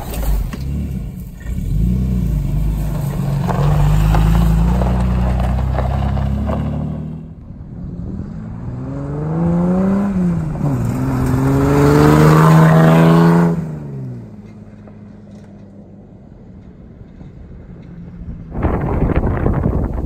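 Nissan GQ Patrol 4WD engine running under way through grass, heard close from a camera mounted on the vehicle. After a break the Patrol drives toward the camera on a gravel track: its engine note rises, dips briefly about ten seconds in, rises again and cuts off suddenly. Near the end, wind buffets the microphone.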